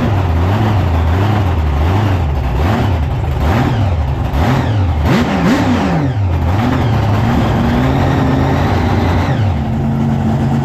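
Race car's engine heard from inside the caged cockpit, revving up and dropping back over and over as the car drives through deep mud, with a few knocks partway through. Near the end it settles to a steadier, lower running.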